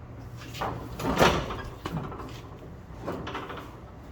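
Several knocks and scrapes of metal parts being handled and worked loose on a truck, the loudest about a second in.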